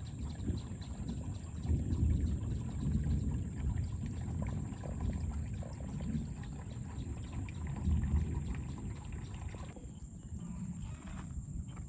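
Water pouring and splashing, with many small crackles over a low rush and a steady high-pitched whine above it; the sound changes suddenly near the end.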